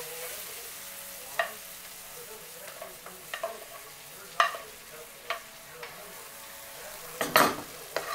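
Chicken sizzling steadily in a nonstick frying pan, with a utensil clacking and scraping against the pan every second or so. The loudest knock comes about seven seconds in.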